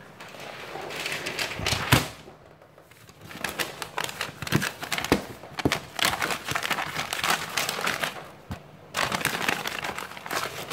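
A sheet of paper being handled and folded on a table: rustling and crinkling in irregular spurts, with a sharp tap about two seconds in.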